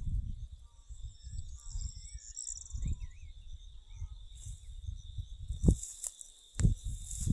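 Outdoor nature ambience: a steady high insect-like drone and faint bird chirps over irregular low rumbling, with a couple of stronger low thumps near the end.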